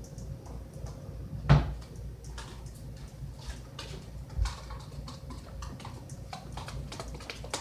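Irregular small clicks and taps of a utensil and container while shampoo-and-sugar slime is mixed by hand, with a loud knock about a second and a half in and a softer one a few seconds later.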